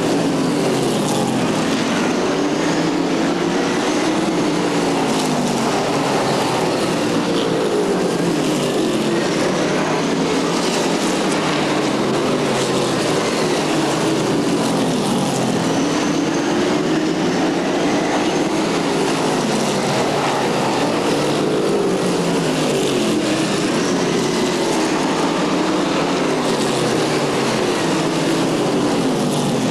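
Several stock cars racing around a short oval track. Their engine notes rise and fall in pitch again and again as the cars come past and pull away, with several engines overlapping.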